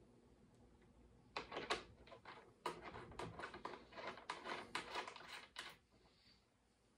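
Hands working small hardware and cable at a battery's terminal posts: a run of irregular clicks and rustles that starts just over a second in and stops about a second before the end.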